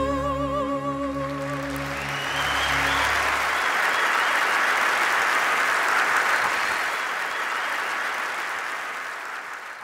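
A woman's voice holds a final sung note with vibrato over sustained low accompaniment; it ends about two seconds in. Audience applause rises as the note ends, goes on steadily, and fades out near the end.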